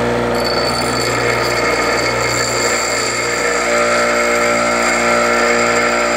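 Delta 6-inch bench grinder running, its wheel grinding the corners off the opening of a metal clamp bracket held against it by hand: a steady grinding hiss over the motor's hum, starting just after the beginning.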